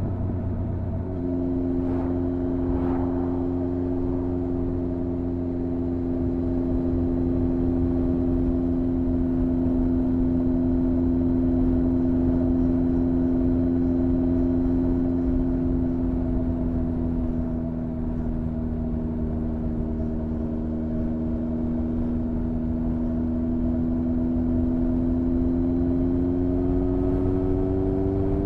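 Honda CB1300's inline-four engine running at steady road speed, heard from the bike; its note firms up about a second in, eases slightly, then rises again near the end as the revs climb.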